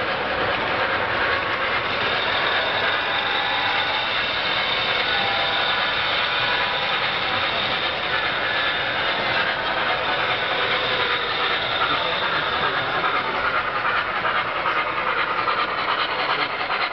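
O-scale model trains running on a layout: a steady, continuous running noise of wheels on track and motors.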